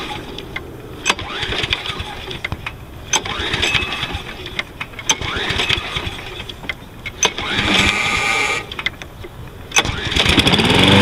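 A cold Briggs & Stratton 190 cc engine on a Toro Personal Pace lawn mower being pull-started after about two months unused: repeated pulls of the recoil starter, then it catches about ten seconds in and runs unevenly, its speed rising and falling.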